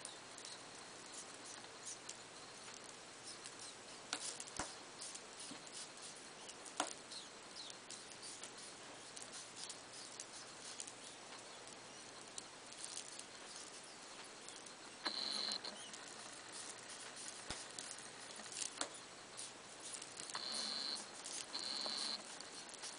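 African pygmy hedgehogs shifting on fleece bedding while mating: faint scattered clicks and scratching. Three short, high-pitched steady tones stand out, one about halfway through and two close together near the end.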